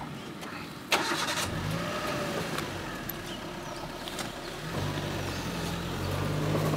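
A vehicle engine starting and running low and steady, with a sharp click about a second in.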